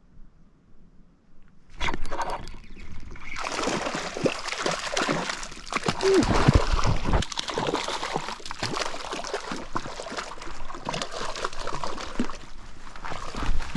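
Water splashing and sloshing close by, starting suddenly about two seconds in and going on loud and irregular, with many quick splashes.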